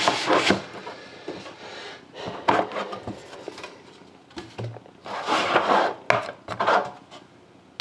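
A rigid cardboard trading-card box being opened by hand: the lid and inner box rub and scrape against the outer box in a few short bursts, the longest about five seconds in.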